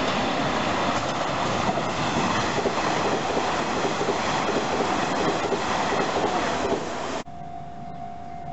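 Nishitetsu electric commuter train running past close by on the rails. The sound cuts off suddenly about seven seconds in, leaving a quieter steady tone.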